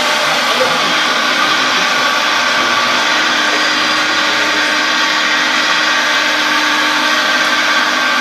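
Hydraulic pump of a radio-controlled model excavator running with a steady whine while the boom and bucket dig.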